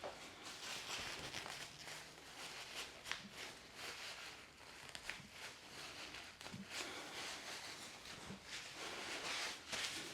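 Soft rustling and rubbing of hands on fabric and skin during hands-on massage, coming in swells every second or two, with a few light clicks.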